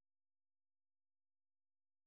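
Silence: the soundtrack is empty, with no audible sound at all.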